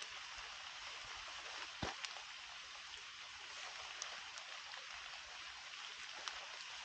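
Light rain falling in woodland: a faint, steady patter on wet leaves and leaf litter, with a few single drops ticking now and then.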